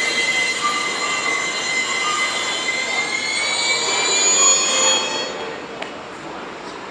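Brakes of a freight train hauled by an EH200 electric locomotive squealing as it comes to a stop: a high, steady squeal that rises slightly in pitch and ends about five seconds in as the train halts. A quieter hum and a single click follow.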